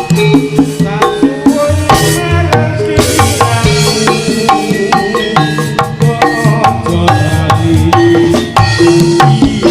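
Live Javanese jaranan (turonggo) ensemble music: hand drums keep a busy rhythm under struck, ringing gamelan-style metal notes.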